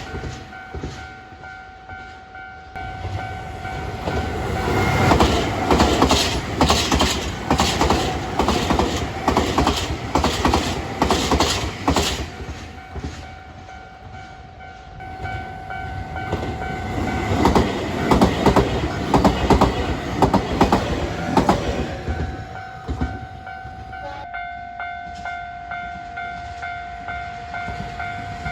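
Nankai Main Line electric train passing over a level crossing, its wheels clattering over the rail joints in quick groups of clacks that swell twice. The crossing's warning bell keeps sounding underneath, clearest near the start and the end.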